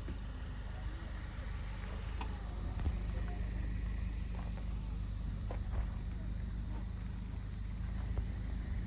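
A steady high-pitched insect chorus over a low, steady wind rumble on the microphone, with a few faint clicks.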